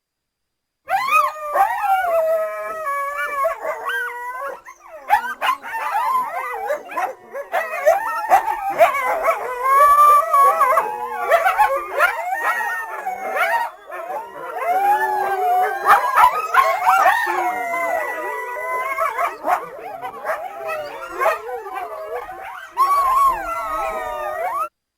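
A group of coyotes howling and yipping together: many overlapping, wavering high calls. It starts about a second in and cuts off suddenly near the end.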